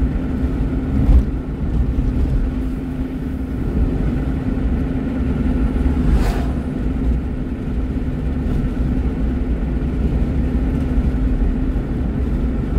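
Steady road and engine drone inside a moving car. About six seconds in there is a brief whoosh as an oncoming truck passes close by.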